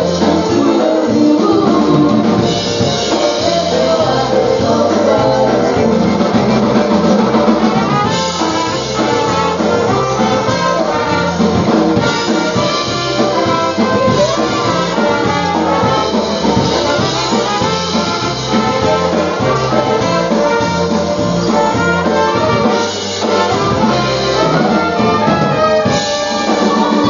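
Live polka band playing, with brass instruments carrying the tune over a steady bass and drum beat.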